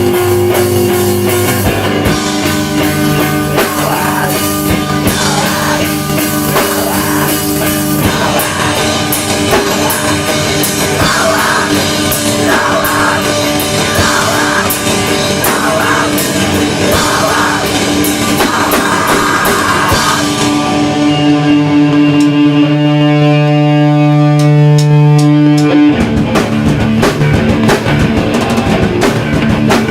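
Hardcore punk band playing live, with distorted electric guitars, bass and drums with crashing cymbals. About twenty seconds in, the drumming thins out and the guitars hold ringing chords; the full band comes back in some six seconds later.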